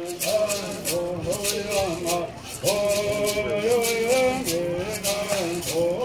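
Gourd rattles shaking in a steady, fast beat while a group of men sing a Quechan Bird Song in unison, their voices moving in stepped, held notes with a brief break partway through.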